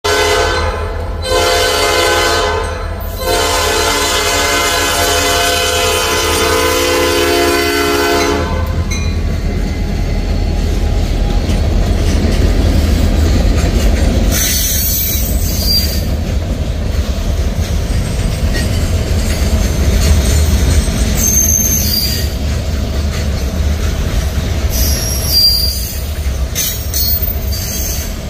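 Norfolk Southern diesel locomotive's air horn blowing for a road crossing: two short blasts, then one long blast of about five seconds over the rumble of the diesel engine. The locomotive then passes and a string of covered hopper cars rolls by on the rails, the wheels giving brief high-pitched squeals now and then.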